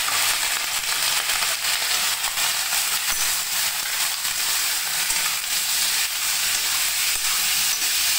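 Raw pork pieces sizzling and frying in hot oil in a kadai, with crackling, as they are stirred with a metal ladle.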